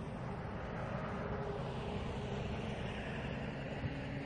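Steady wind noise buffeting the microphone, with a faint steady hum underneath.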